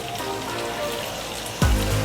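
Food sizzling as it fries in a little oil in a pan, a steady crackling hiss, over quiet background music; a low rumble comes in near the end.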